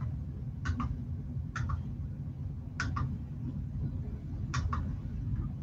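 Computer mouse clicking: four quick double clicks spaced about a second apart, over a steady low hum.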